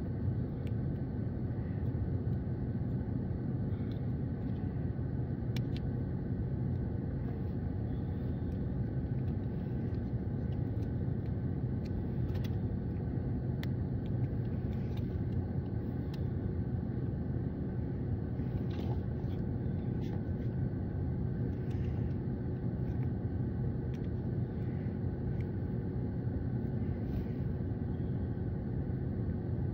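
Steady low rumble of a stationary car idling, heard from inside the cabin, with a few faint clicks.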